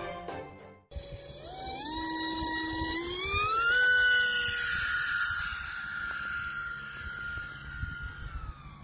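Electric motor and propeller of a small foam RC model F-104 Starfighter whining, throttled up in steps to a steady high whine that slowly sags and drops near the end as the throttle comes back. Background music fades out in the first second.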